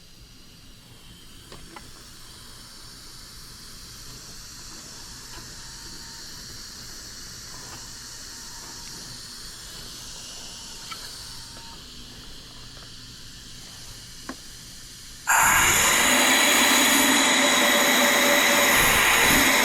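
A low steady hiss with a few faint clicks. About four seconds before the end, a 3D-printed six-chime steam whistle suddenly starts blowing loud on compressed air: a chord of several steady tones under heavy air noise.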